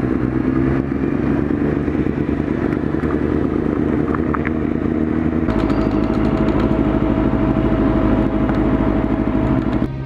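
Motorcycle engine running at low speed under a rush of wind on a helmet-mounted camera; about five and a half seconds in the engine note shifts and a steady tone joins it.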